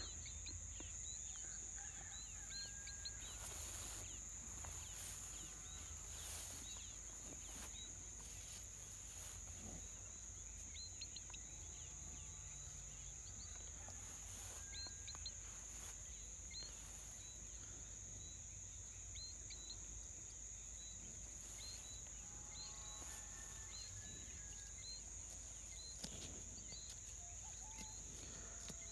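Faint outdoor ambience of a steady, high insect drone, with many short, high bird chirps scattered through it.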